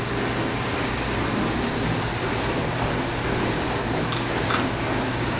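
Dishwasher running: a steady hum under an even rush of wash noise. A single short click about four and a half seconds in.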